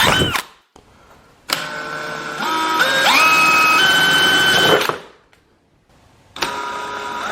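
A drill's electric motor running in bursts while drilling pin holes. Its whine steps up in pitch as the trigger is squeezed harder. It winds down just after the start, runs again from about a second and a half to five seconds in, and starts up once more near the end.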